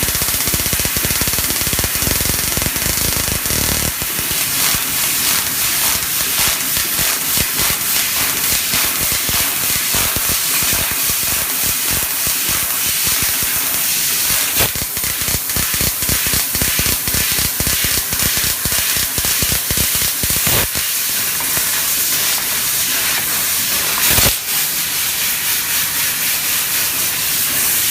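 A 4 kW CNC fiber laser cutting machine cutting metal: a steady hiss with dense crackling throughout.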